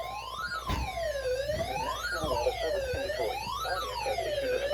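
A siren wailing, its pitch rising and falling about every one and a half seconds. Under its start, the steady single-pitch weather radio warning alarm tone that announces an emergency alert, which cuts off about a second in.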